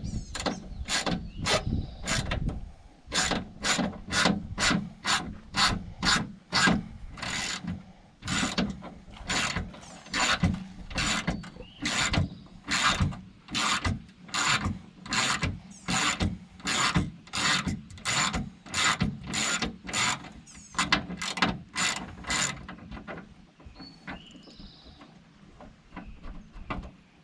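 Socket ratchet wrench with an 8 mm socket clicking in steady back-and-forth strokes, about two a second, as it backs out small bolts. The strokes stop about 22 seconds in.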